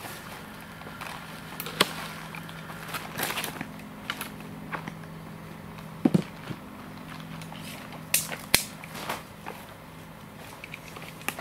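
Willow branches being handled and woven into a wattle frame: rustling with scattered sharp clicks and cracks of twigs, the heaviest about six seconds in, over a steady low hum.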